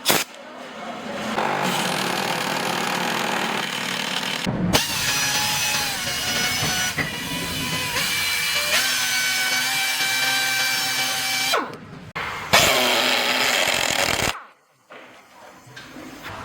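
Power screwdrivers running in several bursts: first a noisy spin of about four seconds, then a steady motor whine that shifts pitch in steps for several seconds and stops abruptly, then another short noisy run.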